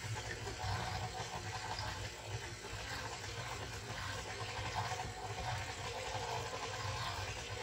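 KitchenAid stand mixer running steadily with a low hum, its flat beater churning flour and milk into a stiff dough.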